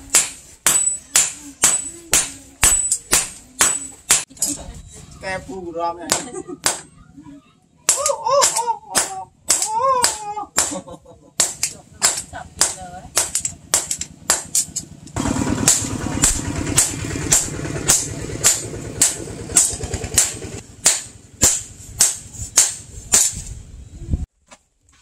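Hand hammer striking a red-hot knife blade on a steel stake anvil, a steady run of blows at about two a second, each with a bright metallic ring.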